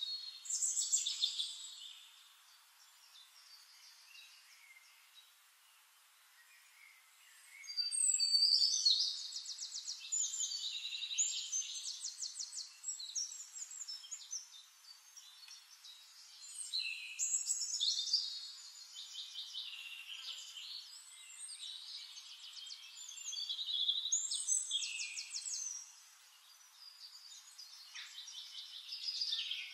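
Songbirds singing: high chirps and rapid trills in phrases every few seconds, with a lull of a few seconds after the first phrase.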